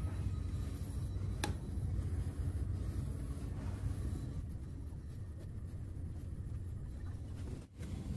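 Grey PVC pump housing parts being handled and turned in the hands, with light plastic rubbing and one sharp click about one and a half seconds in, over a steady low hum.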